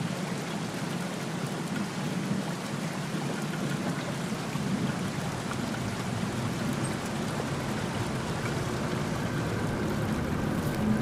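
Steady, even hiss of falling rain.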